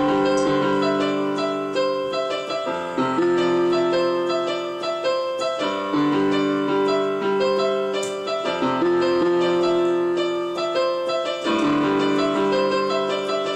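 Electronic keyboard played with both hands in a piano voice: held chords that change every second or two, with quicker notes above them.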